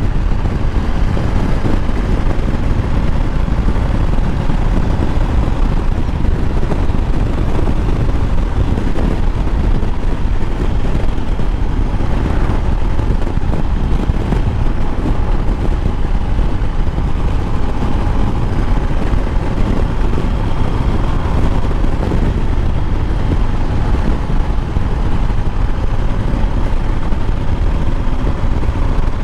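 Motorcycle engine running steadily while riding, under a steady low rumble.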